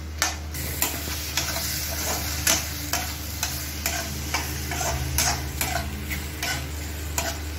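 Slotted metal spatula stirring ridge gourd curry in a metal kadhai, clinking and scraping against the pan about twice a second over a steady frying sizzle.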